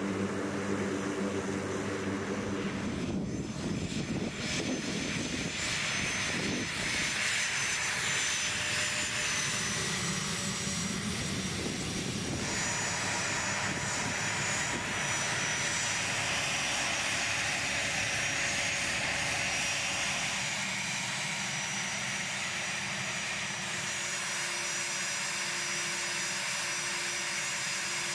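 Aircraft engines running: a pitched propeller-engine drone for the first few seconds, then the steady hum and high whine of an A-10 Thunderbolt II's turbofan engines running on the ground.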